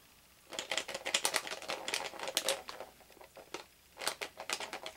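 A Hatchimals foil blind bag being shaken, the small plastic figure inside rattling in quick clicks against the crinkly foil, in two bouts with a short pause between. The rattle is listened to as a way of telling whether one figure or two are inside.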